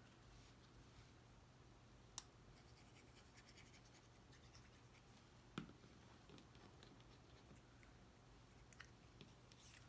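Near silence with faint handling of cardstock craft pieces: soft scratching and two light taps, about two seconds and five and a half seconds in, plus a few small clicks near the end.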